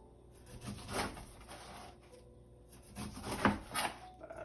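Kitchen knife cutting down through a pineapple onto a cutting board: a single knock about a second in, then three more close together near the end.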